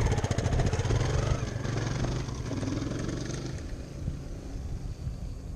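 Dirt bike engine pulling away, revving as it goes, and fading steadily into the distance over a few seconds.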